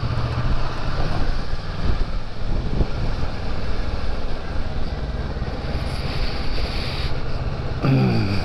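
Motorcycle engine running at low speed in town traffic, heard from the rider's seat, with a steady low engine note. About eight seconds in, a short sound falls sharply in pitch.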